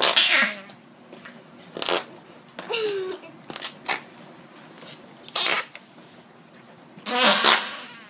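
Fart-noise slime putty being squeezed: about six short, noisy squelching blasts at irregular gaps, the longest and loudest near the end.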